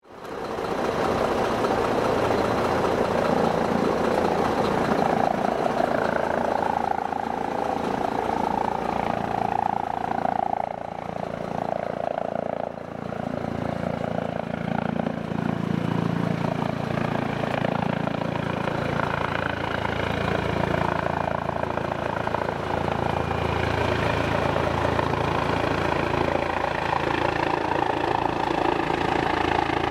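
Eurocopter EC135 air-ambulance helicopter approaching, its twin-turbine and rotor noise building in the low range through the second half, over a steady engine idle.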